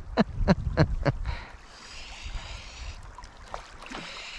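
Creek water running over rocks, a steady rushing hiss, with a low rumble underneath.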